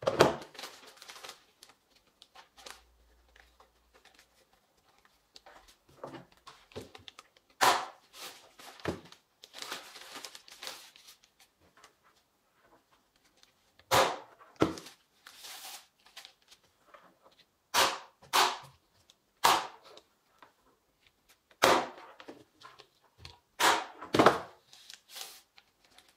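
Staple gun shooting staples through black plastic sheeting into the wooden planter walls: about ten sharp shots at irregular gaps of a second to several seconds, with the plastic crinkling as it is pulled and smoothed between them.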